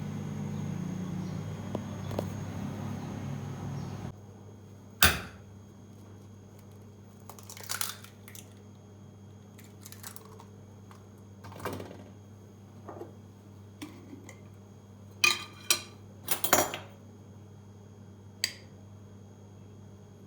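Kitchenware being handled: scattered sharp knocks and clinks of dishes and utensils, the loudest about five seconds in and a quick cluster around fifteen to seventeen seconds, over a faint steady hum. The first four seconds hold a louder noisy background that cuts off suddenly.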